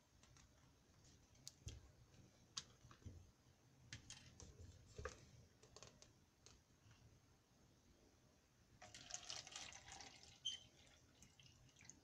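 Faint clicks and crinkles of a plastic water bottle being handled, then water pouring from the bottle into a plastic cup, starting about nine seconds in.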